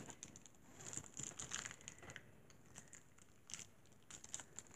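Faint, intermittent crinkling of a small plastic wrapper being handled in the fingers.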